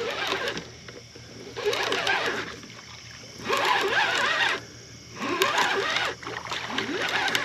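A hooked fish thrashing and splashing at the surface in shallow water while being reeled in, in five splashy bursts about every one and a half to two seconds.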